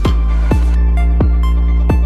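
Electronic background music with a heavy kick drum about every 0.7 s over a steady deep bass and held synth notes.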